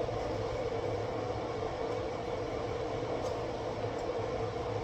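A steady mechanical hum, with a constant mid-pitched tone over a low rumble.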